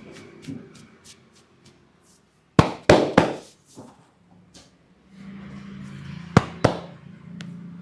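Sharp percussive strikes from a head massage: three quick loud hits about two and a half seconds in, then two more near the end.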